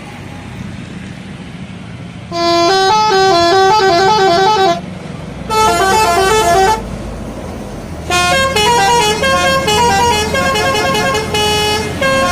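Indonesian bus 'telolet' musical horn playing quick stepping multi-note tunes in three bursts: from about two seconds in, briefly around six seconds, and again from about eight seconds in. A low steady rumble runs underneath.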